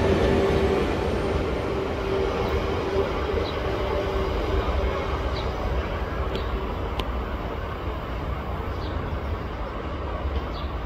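Electric commuter train running on the track and moving away, its rumble slowly fading. A steady motor whine dies away in the first second or so.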